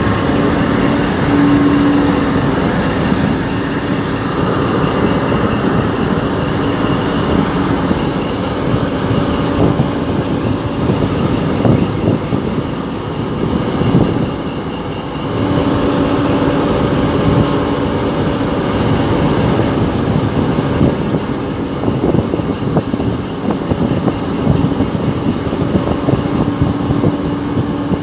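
Boat's engine running steadily underway, a constant hum over the wash of water churning along the hull. The hum drops away for a few seconds about halfway through, then comes back.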